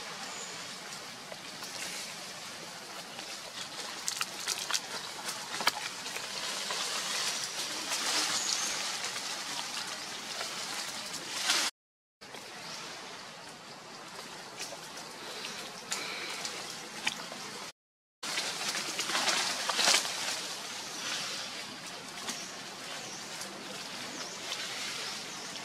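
Macaques rustling and scrambling through dry leaf litter and undergrowth, with scattered crackles of twigs and leaves over a steady forest hiss. The sound cuts out briefly twice.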